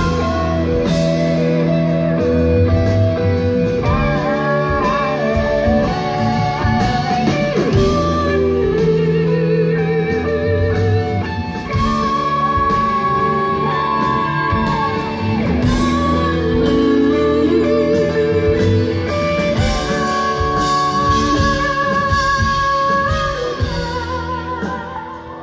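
Live rock band playing a long passage without lyrics: electric guitars holding and bending sustained notes over bass and drums, fading down at the very end.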